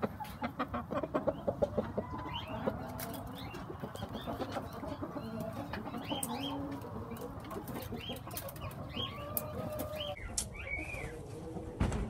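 Chickens clucking and calling in a coop, with many short high chirps throughout. A run of quick clicks comes in the first two seconds, and a thump near the end.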